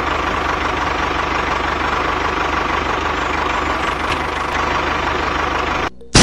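Tractor engine running steadily with an even low chug, cutting out briefly just before the end.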